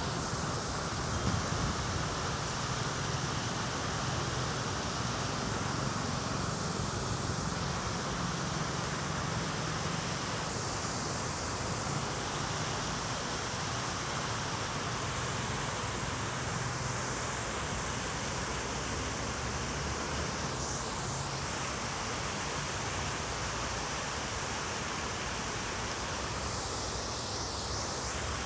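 Steady rush and splash of water from a large fountain's tall central spray and smaller jets falling into its basin.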